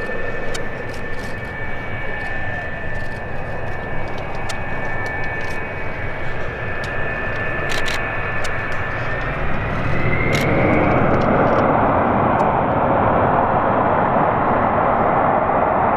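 The twin General Electric J79 turbojets of a McDonnell Douglas RF-4E Phantom II running at low power with a steady high whine. About ten seconds in, the whine rises in pitch and a louder jet roar builds as the engines are throttled up on the runway.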